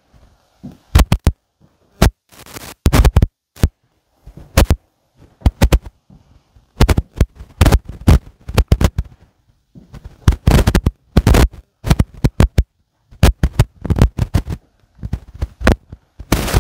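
Irregular scratchy knocks and rubbing, in quick clusters with dead silences between: handling noise on a microphone carried by someone walking.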